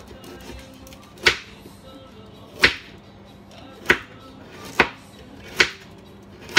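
Kitchen knife chopping carrot slices on a wooden cutting board: sharp knocks about once a second, coming a little closer together toward the end.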